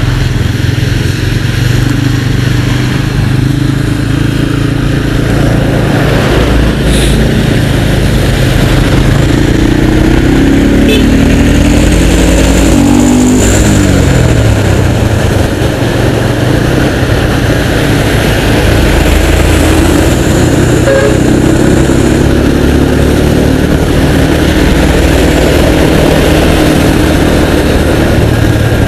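Motorcycle engine running at road speed under steady wind and wet-road noise. About ten to fourteen seconds in, the engine pitch rises and falls as the bike changes speed in traffic.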